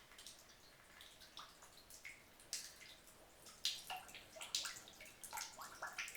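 Urine dribbling into toilet bowl water in small, irregular splashes, faint at first and louder from about halfway through. A weak, halting stream, which the man puts down to the anesthesia and swelling after his hernia surgery.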